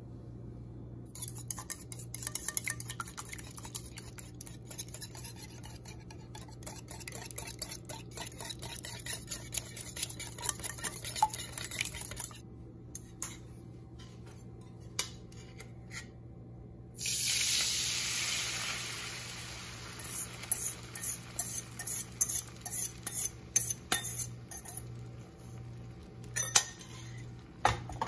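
A wire whisk beating eggs in a stainless steel bowl, rapid metal clicking for about ten seconds. Later, a sudden sizzle as the beaten eggs hit the hot nonstick pan, fading over a few seconds, followed by a series of sharp clinks of metal on metal.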